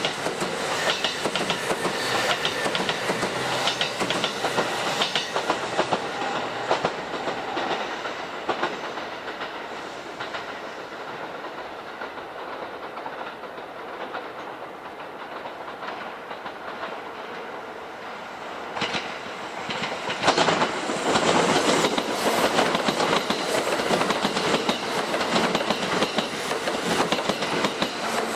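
Electric commuter trains running on the station tracks, wheels clacking over rail joints: one train's clatter dies down after about six seconds, and a second train comes clattering in about twenty seconds in.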